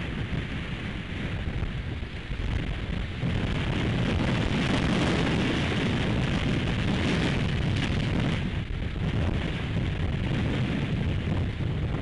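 Strong gusting wind buffeting the nest camera's microphone: a steady rushing noise, heaviest in the bass, that grows louder about three seconds in and eases somewhat after about eight seconds.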